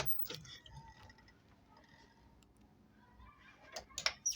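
A school door being let swing shut under its door closer: a couple of clicks at the start, a quiet stretch while it closes, then a few sharp clicks near the end as it latches.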